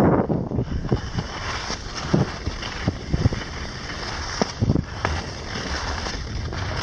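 Gear sliding down a groomed piste: a steady hiss of edges over packed snow, broken by irregular short scrapes, under a low rumble of wind on the microphone.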